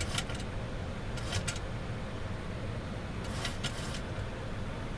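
Steady rumbling flight-deck noise of a Boeing 737-800 on final approach, from air rushing past the nose and the engines. Three short clusters of hissy clicks cut in: one at the start, one about a second in, and one in the second half.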